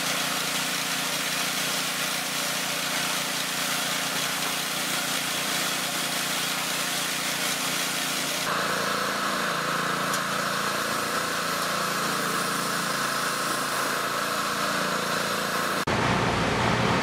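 High-pressure washer jet spraying water onto the metal floor of a CH-53E helicopter's cargo cabin: a steady, loud hiss over the even drone of the washer's motor, its tone changing about halfway through. Shortly before the end it cuts abruptly to a low, steady rumble.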